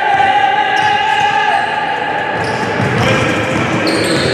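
Basketball dribbled on a hardwood gym floor, bouncing repeatedly and echoing in the hall. Over about the first second and a half a long held pitched tone sounds above the bouncing.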